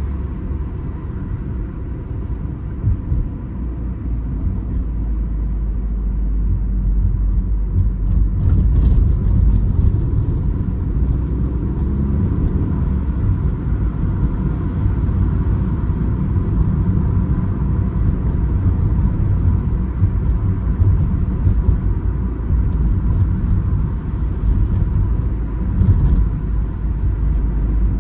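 An Opel Astra H on the move, a steady low rumble of engine and road noise. It grows louder over the first ten seconds or so, then holds steady.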